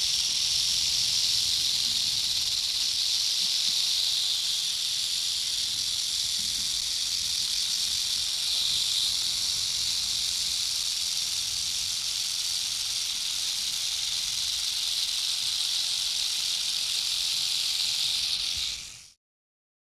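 Rattlesnake rattling its tail: a continuous, steady, high-pitched buzz that fades out and stops near the end.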